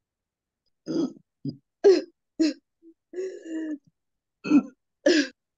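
A person clearing the throat, coughing and gagging in about seven short bursts with gaps between, one held a little longer past the middle. In the ruqyah session this is the reaction the healer urges on as something being expelled through vomiting or burping.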